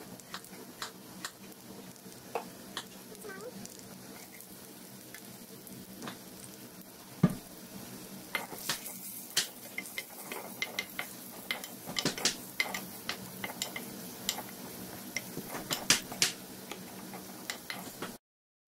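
Onion, curry leaves and mustard seeds frying in hot oil in a steel pan, stirred with a steel spoon: a steady sizzle scattered with sharp clicks and knocks, busier in the second half, with one loud knock about seven seconds in. The sound cuts off abruptly just before the end.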